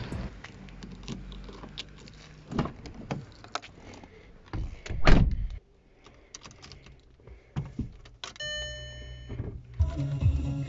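Sounds of getting into a car: a few knocks, then a loud thump about five seconds in as the car door shuts. Car keys rattle at the ignition, a dashboard warning chime sounds once for about a second, and the engine begins to crank near the end as the key is turned.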